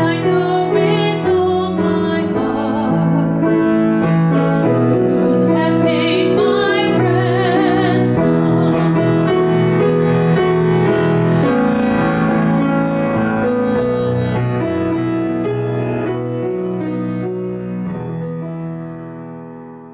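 A woman singing a worship song with vibrato to her own grand piano accompaniment. The singing stops about eight seconds in and the piano plays on alone, its final chords fading away near the end.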